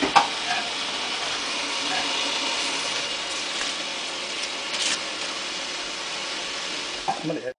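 Dried corn husks rustling as they are tucked by hand over tamales in an aluminium steamer pot, with a light knock near the start and another about five seconds in, over a steady hiss.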